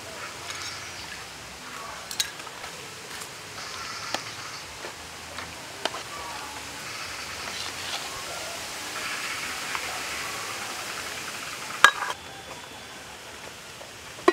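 A metal spoon stirring simmering curry broth in an aluminium pot, with light clinks against the pot and a steady bubbling hiss. About two seconds before the end the aluminium lid clanks onto the pot, the loudest sound.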